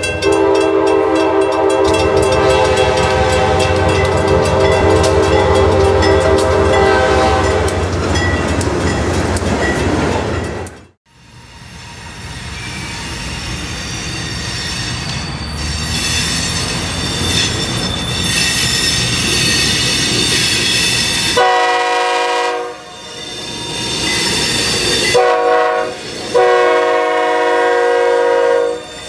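Diesel freight locomotive horn, sounded long over the low rumble of the approaching train, fading after several seconds. After a cut, another freight's rumble builds with high squealing tones as it nears. Its horn then blows three times: about a second, a short blast and a long one.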